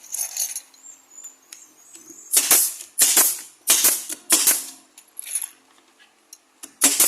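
Pneumatic nail gun firing nails into cabinet panels: a string of sharp shots, each with a short hiss of air, coming about one to two a second from a couple of seconds in.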